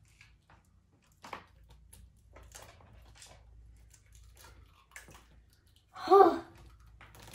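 An egg being cracked and its shell pulled apart over a stainless steel mixing bowl: scattered small taps and clicks. About six seconds in, a child gives a short, loud vocal exclamation.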